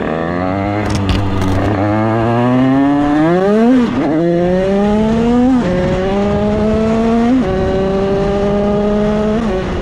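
Tuned two-stroke Derbi motorcycle engine accelerating hard through the gears. Its pitch climbs and drops sharply at each of four upshifts, about every two seconds.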